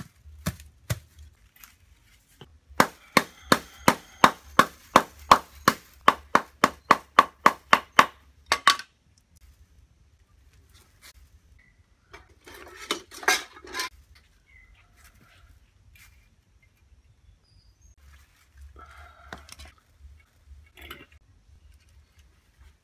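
Quick run of about twenty sharp, ringing hammer strikes on the metal band of a hand-made stick broom, about three a second, that stops abruptly. Later come the clatter and scrape of tools being rummaged in a wooden toolbox.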